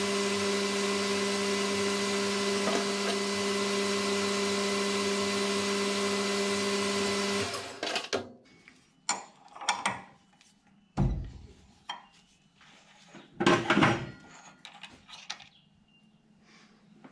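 Metal lathe running steadily with a hand file held against the spinning aluminium piston; the spindle stops abruptly about seven seconds in. A few sharp metallic knocks and clicks follow, the loudest about 14 seconds in, as the collet chuck is worked and the piston is taken out.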